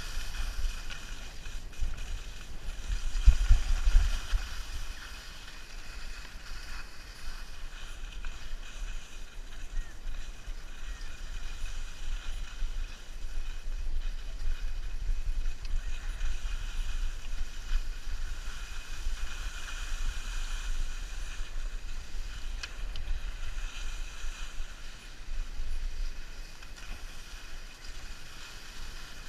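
Wind buffeting the camera's microphone while skiing downhill, with the hiss of skis sliding over packed snow swelling and fading. The wind rumble is strongest about three to four seconds in.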